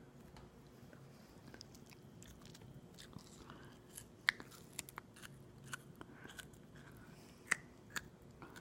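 Close-miked mouth sounds of chewing aloe vera: sticky clicks and smacks, sparse at first and more frequent in the second half, the sharpest about four seconds in and again near the end.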